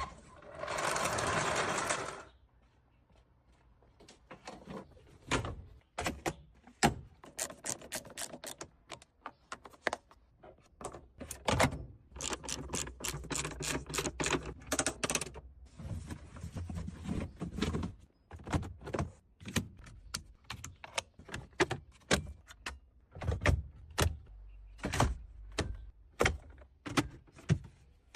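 Hands-on restoration work: repeated sharp clicks, taps and knocks of parts and tools being handled and fitted, with spells of scraping and a short hiss near the start.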